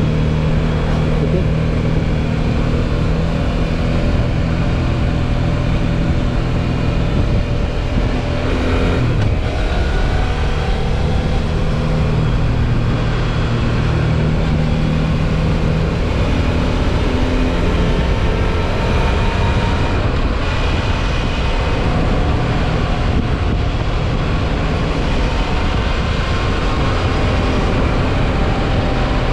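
Suzuki V-Strom 650 XT's V-twin engine running steadily under way, heard over dense noise. The engine note drops and comes back up about nine seconds in, with smaller pitch shifts later.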